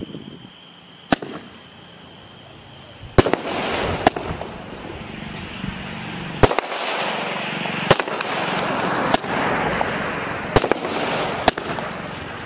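Sky King 30-shot aerial firework cake firing: a single sharp pop about a second in, then from about three seconds a string of loud shots, one every second or so, with a dense crackle of bursting stars between them.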